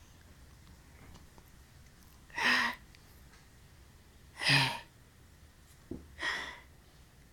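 A young child making three short breathy vocal noises, like gasps or squeals, each about half a second long and a couple of seconds apart.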